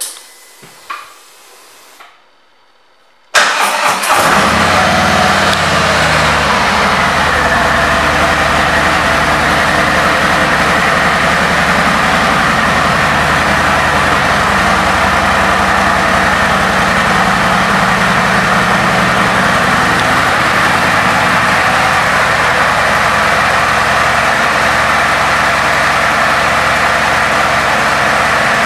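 2019 Harley-Davidson Street Glide's Milwaukee-Eight V-twin being started: a few clicks, then the engine catches about three seconds in. It runs at a fast idle that settles lower over the next couple of seconds, then idles steadily.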